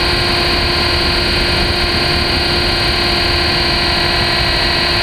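Radio-controlled helicopter in flight, heard from on board: a steady motor whine with several held tones over a dense rush of rotor and wind noise, unchanging at a constant throttle.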